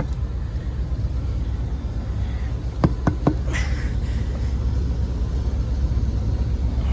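Steady low mechanical rumble of a Carrier rooftop air-conditioning unit running, with a few light clicks about three seconds in and a short hiss just after.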